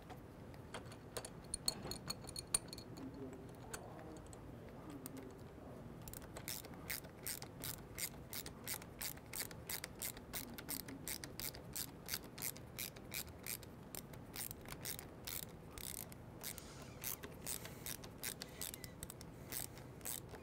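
Screwdriver and wrench tightening a small M3 screw and lock nut, making an even run of sharp clicks about two or three a second, starting about six seconds in after a few scattered clicks.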